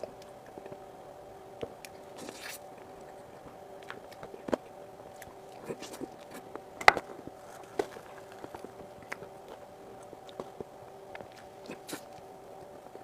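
Close-miked sounds of someone eating soft whipped cream cake: wet mouth and chewing noises with scattered small clicks, one sharper click about seven seconds in. A steady faint hum runs underneath.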